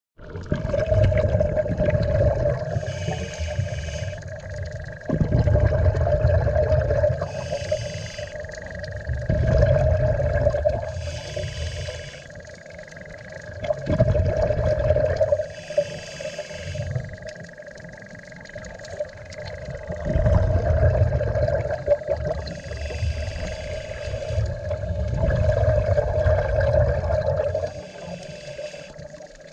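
Scuba diver breathing underwater through a regulator: a hiss of inhaled air alternating with a loud rumble of exhaled bubbles, one breath about every four to five seconds, over a steady hum.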